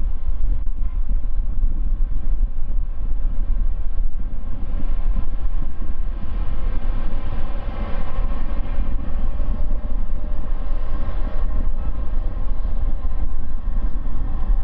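Boeing 747-8F's four GE GEnx turbofans at takeoff thrust as the jet lifts off and climbs away: a loud, steady jet roar with a heavy low rumble.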